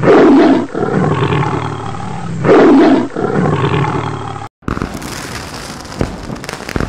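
Lion roar sound effect, two loud roars about two and a half seconds apart with a low rumble between them. After a short break about four and a half seconds in, a crackling, fizzing sparkle effect begins.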